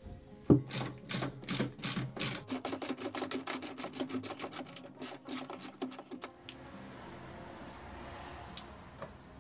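A knock, then a run of rapid metallic clicks that speed up from about four to about eight a second for some six seconds, then stop and leave a faint hiss with one sharp click near the end.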